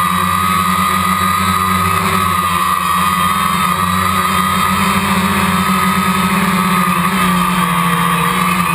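DJI Phantom quadcopter's four electric motors and propellers running steadily in flight, heard through the waterproof case of the GoPro mounted on it: a high steady whine over a low hum, wavering slightly in pitch as the drone manoeuvres.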